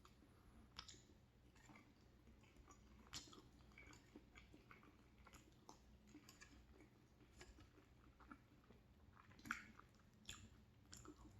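Faint close-up chewing of macaroni and cheese: soft, wet mouth sounds with small clicks scattered through, the loudest about two-thirds of the way in.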